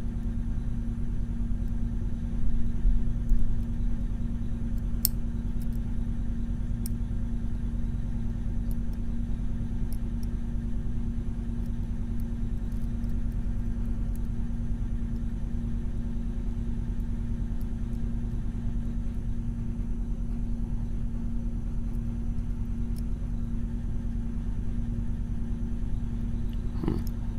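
Steady low mechanical hum with a constant tone, with a few faint, sparse clicks of a lock pick working the pins of a Mul-T-Lock Junior pin-in-pin lock.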